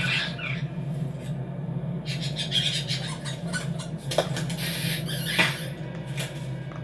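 Cartoon sound effects: scattered clicks and short squeaks over a steady low hum, with a brief bright hiss about halfway through.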